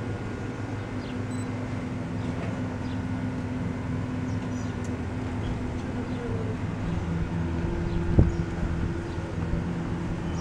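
A steady low mechanical hum with a few held tones, and a single sharp knock about eight seconds in.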